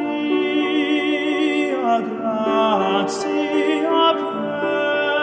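Background music with a slow melody of long held notes that waver in pitch.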